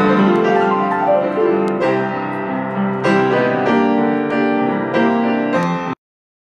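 Grand piano being played, a run of melody notes over sustained chords; the sound cuts off abruptly about six seconds in.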